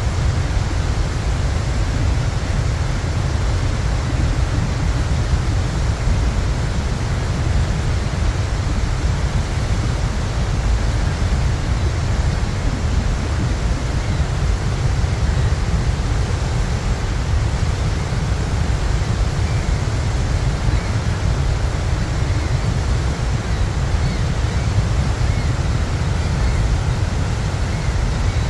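Steady, deep rush of the Horseshoe Falls at Niagara, a huge volume of water plunging into the gorge, unbroken throughout.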